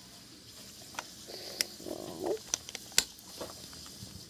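Small plastic LEGO pieces clicking as they are handled and fitted together: a handful of sharp clicks, the loudest about three seconds in, with a brief rustle near the middle.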